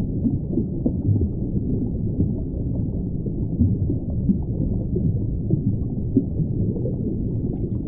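A steady, low, muffled rumble with small irregular gurgles, with nothing above the low range: a heavily filtered sound-design bed.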